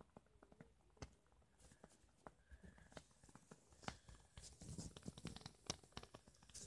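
Faint, irregular crackling and ticking from a small fire burning the melted plastic of a wind-up toy car.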